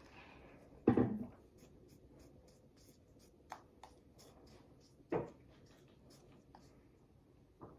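Sugar being sprinkled from a measuring cup onto toast by tapping the cup with the fingers, making a run of faint ticks and patters. There is a knock about a second in and another about five seconds in.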